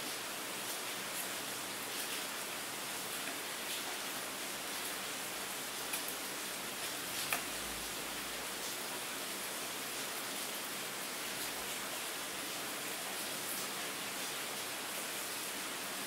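Steady rain: an even hiss of falling rain flecked with faint droplet ticks, with two slightly louder drops about six and seven seconds in.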